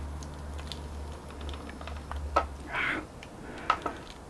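Homemade static grass applicator humming low while its button is held, cutting off a little under three seconds in. Scattered light clicks and taps and a brief rustle come from handling and shaking the applicator to drop the grass fibres.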